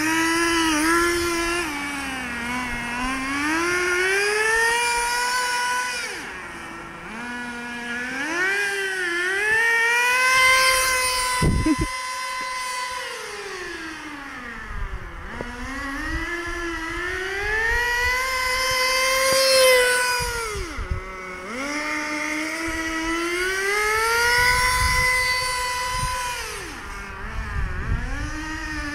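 Motor of a toy-grade RC drift car whining as the throttle is worked, its pitch climbing and falling again and again as the car speeds up and slows down. There is a sharp click about twelve seconds in.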